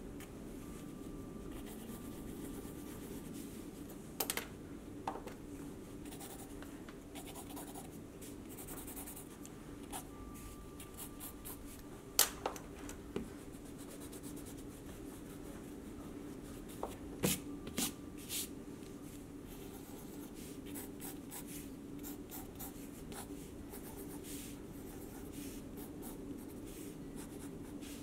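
Pencil scratching across sketchbook paper in short strokes, with a stretch of eraser rubbing partway through. A few sharper clicks stand out.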